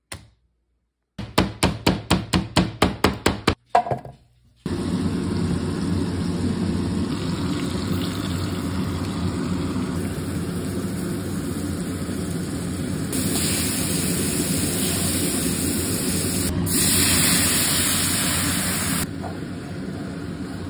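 About a dozen quick, sharp knocks on a cutting board holding raw venison. Then floured venison steaks sizzle steadily in hot oil in a frying pan, the sizzle growing louder and brighter for about six seconds past the middle before dropping back.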